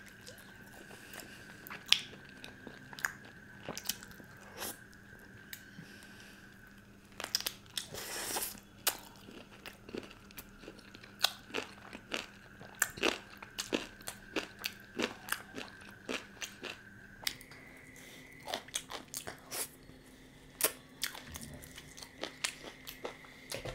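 Close-miked mouth sounds of a man biting into and chewing a butter chicken leg piece: irregular wet clicks and smacks, with a faint steady hum behind.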